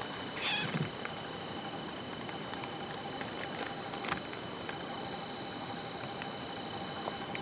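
Steady chorus of crickets, one high continuous trill, with scattered light clicks and rustles; a louder brief scuffle comes about half a second in and a sharp click about four seconds in.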